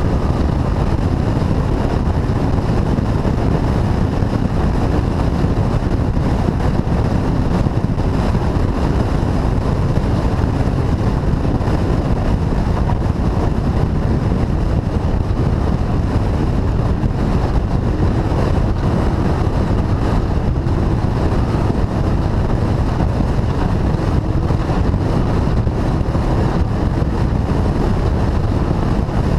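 Off-road race vehicle running at speed, heard from its onboard camera: a loud, steady engine and driveline rumble with rushing wind noise on the microphone.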